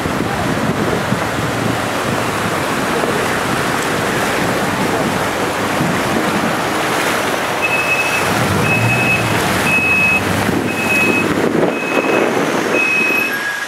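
Floodwater rushing along a street after torrential rain, a loud steady rush. About halfway through, a high beep starts repeating about once a second.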